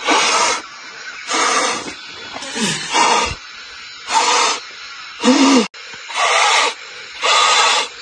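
A person blowing hard by mouth into the valve of an inflatable air mattress to fill it: seven long puffs of breath, about one a second.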